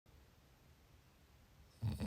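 Faint quiet gap between snores, then a loud snore starts right at the end.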